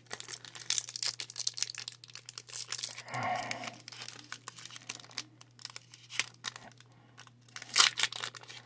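Foil wrapper of a Pokémon card booster pack being torn open and crinkled by hand: a run of irregular crackles and rips, loudest about eight seconds in.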